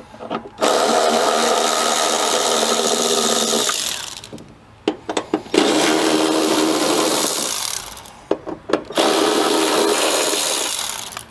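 Cordless electric ratchet running in three bursts of two to three seconds each, backing out three 10 mm bolts. Short clicks and clinks of the socket and bolts come between the runs.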